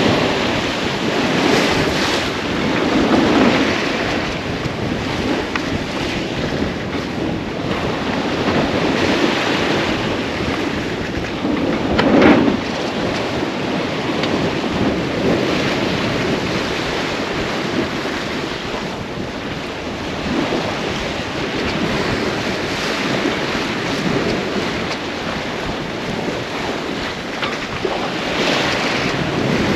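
Wind buffeting the microphone and sea water rushing past a sailboat under way, swelling and fading every few seconds, with one brief louder hit about twelve seconds in.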